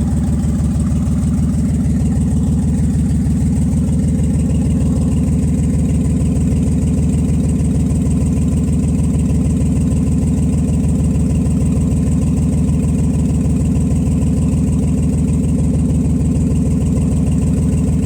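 Nissan Z31's engine idling steadily, just restarted after a fuel-system rebuild, with a lot of exhaust leaks adding to the sound. The owner reports that it still misfires.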